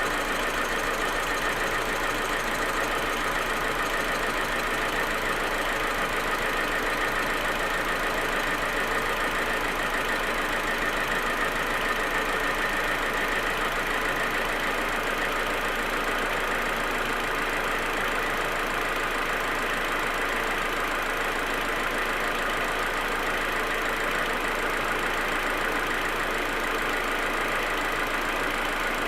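Audi A4 1.8T's turbocharged four-cylinder engine idling steadily. This is the rough, stuttering cold idle that the owner is trying to trace; it goes away once the engine is warm.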